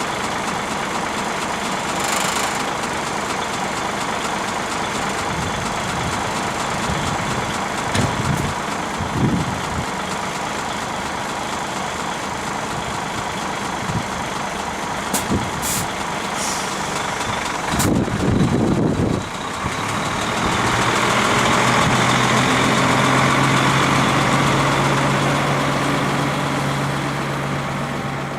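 Heavy truck's diesel engine running, with a few short knocks. About 20 seconds in, the engine grows louder into a steady drone for several seconds, then eases off.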